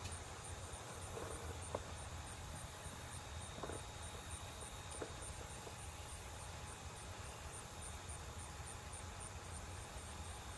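Quiet background: a steady low hum and hiss, with a faint high chirp repeating about three times a second and a few faint soft ticks.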